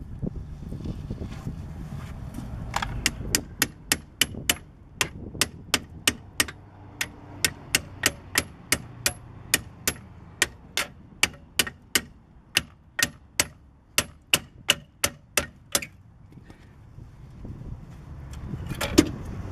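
Hammer striking a steel wrench on a rusted brake caliper bracket bolt, knocking it loose. The blows are sharp and ringing, about three a second, for about twelve seconds. A single heavier metallic knock comes near the end.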